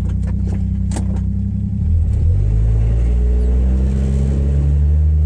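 1962 Rambler Classic's six-cylinder engine running through a worn-out muffler, first at a low idle, then picking up revs a little about two seconds in and holding steady.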